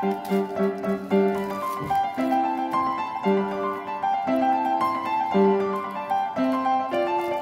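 Background piano music: a gentle tune over chords that change about once a second.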